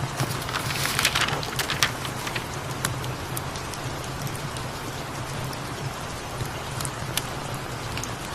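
Steady rain with a cat's low purring underneath and scattered sharp crackles from a fireplace; the noise swells louder for a moment about a second in.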